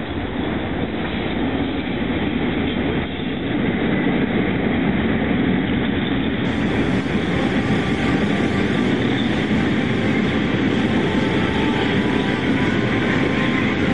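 A train running on rails: a steady, dense rumble of rail and running noise that grows a little louder about four seconds in.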